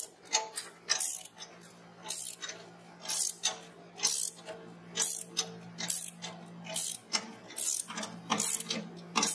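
Ratchet wrench with a 19 mm socket and extension worked back and forth to unscrew a depositing sleeve threaded into a stainless steel hopper, its pawl clicking in short bursts about once a second. A steady low hum runs underneath.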